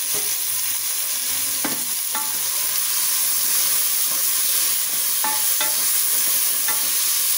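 Freshly added sliced onions frying in hot oil in a pressure cooker, a steady sizzle. A spoon stirs them, clinking against the pot a few times.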